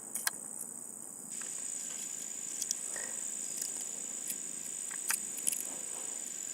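Insects singing in a steady high-pitched drone, with a few faint scattered clicks.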